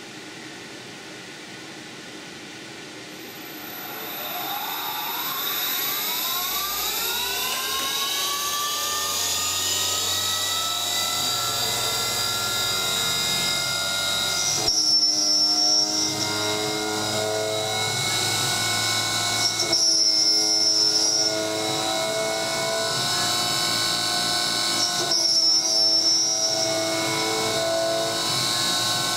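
A CNC mill's brushless DC spindle motor winds up with a rising whine that levels off about ten seconds in, over the steady hiss of mist coolant. From about halfway the end mill is cutting aluminum, and the tone shifts every few seconds as the cut changes.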